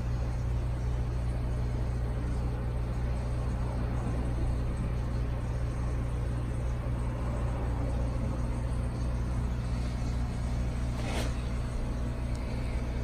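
Steady low rumble with a hum: background room noise. A faint tick comes about eleven seconds in.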